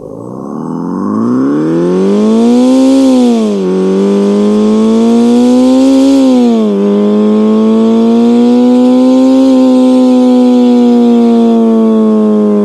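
Homemade synthetic engine sound, made by an infrared photoreflector reading a spinning patterned disc, imitating a four-cylinder with equal-length exhaust accelerating. The pitch climbs and drops sharply twice, about 4 and 7 seconds in, like gear changes, then rises slowly and eases off. A rushing hiss rides over the first two climbs.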